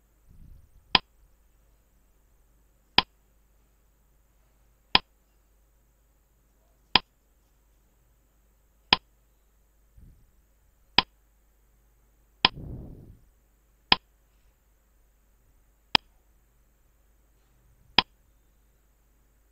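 Clock-tick sound effect of a quiz countdown timer: a sharp tick about every two seconds. A brief low noise comes about twelve and a half seconds in.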